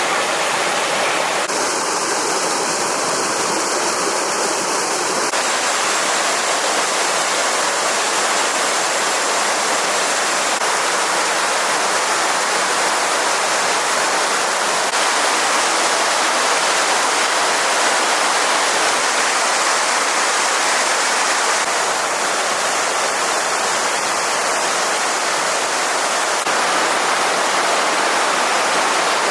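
Stream water rushing steadily, a loud, even splashing hiss whose tone shifts slightly a few times.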